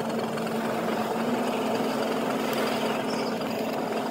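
Steady drone of a small coastal cargo ship's engine under way, a continuous low hum over a hiss, its pitch nudging up slightly about a second in.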